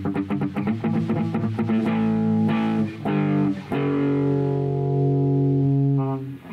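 Budget Les Paul-style solid-body electric guitar played through an overdrive pedal: a run of quickly picked notes, then held notes, and a long ringing chord that is cut off shortly before the end.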